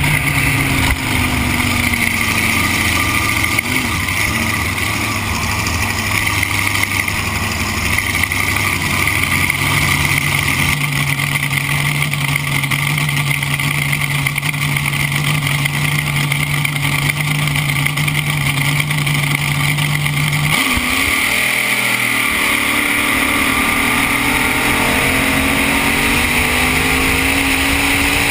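Supercharged drag boat engine running at low speed, heard onboard over water and wind hiss. Its steady low note breaks off about twenty seconds in and is followed by a slowly rising pitch.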